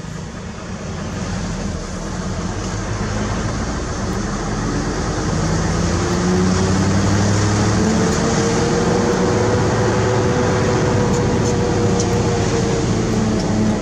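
Truck diesel engine heard from inside the cab while driving, with steady road noise underneath. The engine note climbs in pitch and gets louder over the first half as the truck accelerates, then holds steady.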